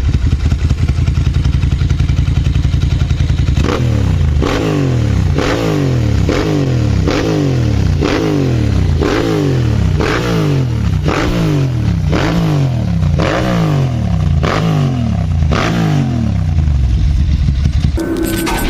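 Ducati Monster S2R 1000's air-cooled L-twin running through an aftermarket exhaust with the catalysts removed. It idles steadily at first, then from about three and a half seconds in the throttle is blipped over and over, about once every 0.7 s, and each rev drops straight back. The sound changes abruptly just before the end.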